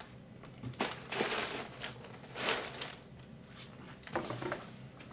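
Crumpled brown kraft packing paper rustling and crinkling in several swishes as it is handled, with a few sharp knocks of cardboard on the table.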